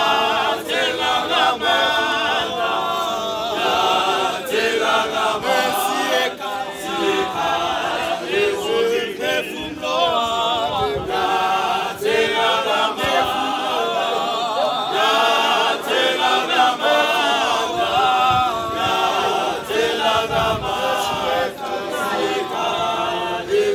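Male choir singing a cappella in several parts, unaccompanied voices only.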